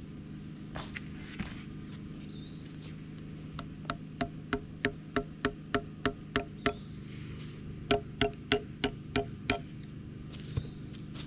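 Hammer driving a nail into the end of a log: a run of about eleven strikes at roughly three a second, a short pause, then six more.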